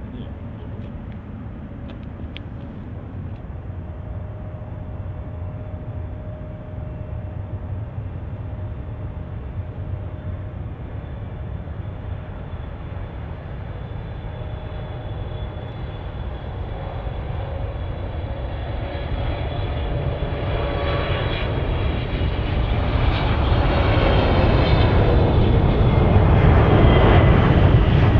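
Boeing 777 jet engines: a steady low rumble that grows steadily louder as the airliner comes in to land. In the last third, whining tones slide down in pitch as it passes close.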